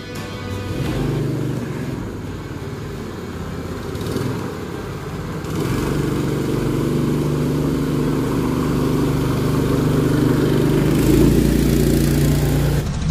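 Small engine running steadily, getting louder about five and a half seconds in.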